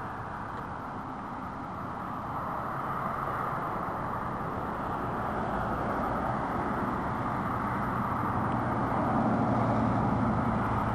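Road traffic: cars driving past on the road below, a steady rush of tyre and engine noise that swells gradually louder toward the end as a vehicle comes closer.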